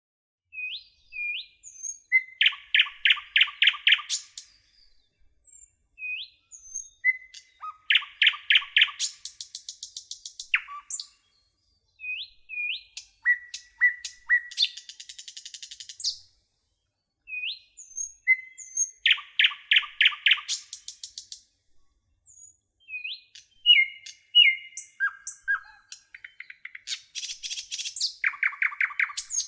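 Nightingale singing: five phrases, each a few seconds long and set apart by short pauses. Each phrase mixes short rising whistles with runs of fast repeated notes and rapid trills.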